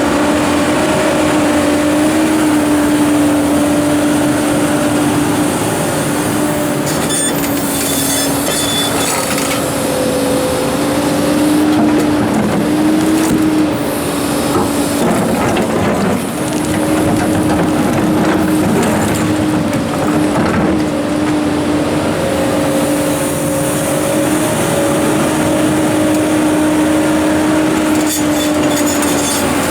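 Komatsu PC290-11 excavator's diesel engine running under load with a steady hydraulic whine that wavers slightly in pitch as it works. Twice, about a quarter of the way in and near the end, brief harsh grinding bursts rise over it, as the machine handles large rocks.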